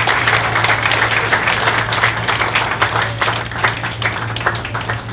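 Wedding guests applauding: dense clapping that begins to die down near the end, over a steady low hum.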